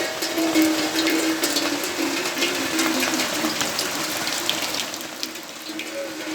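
Steady rain falling, with many separate drops ticking onto hard surfaces, over a low wavering tone. The rain eases slightly about five seconds in.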